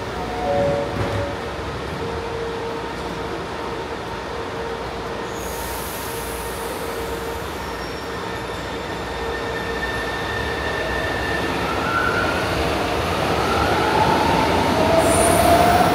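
São Paulo Metro train running in the station, a steady rumble that grows louder over the second half, with high whining tones gliding upward near the end.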